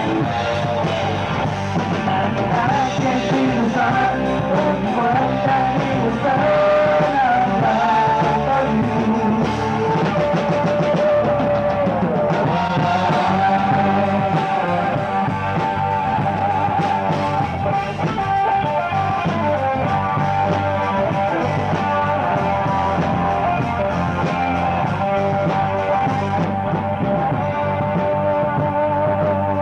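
Live rock band playing a song, with electric guitar and drums.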